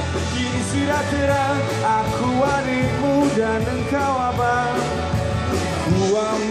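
Live rock band playing: a singer over guitars and drums, with a steady beat of cymbal strikes.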